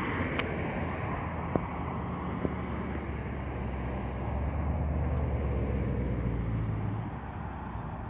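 Road traffic: vehicles driving past with tyre noise and a low engine rumble that grows louder from about four seconds in and fades away near the end.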